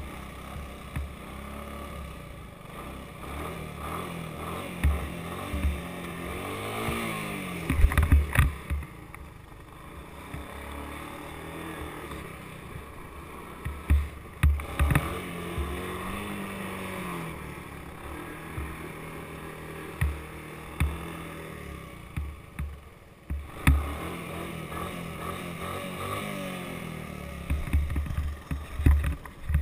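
Honda three-wheeler ATV engine revving up and down as it is ridden and throttled into wheelies, its pitch rising and falling several times. Wind buffets the microphone in repeated low thumps, loudest about a quarter of the way in and near the end.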